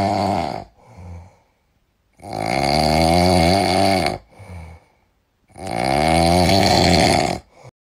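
Loud snoring: a short snore at the start, then two long snores of about two seconds each with a wavering, rasping pitch, each followed by a short, quieter breath.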